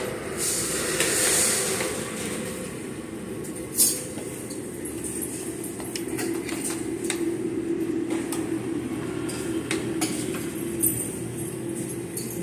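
Steady low hum of a busy buffet room, with sharp clinks of serving utensils against metal trays and plates, the loudest about four seconds in and another near the end.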